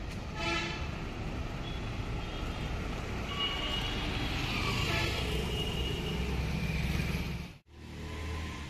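Motor scooter riding up and passing close by, its engine and tyre noise swelling to a peak about five seconds in over a low traffic rumble, with a short horn toot about half a second in. The sound cuts off abruptly near the end.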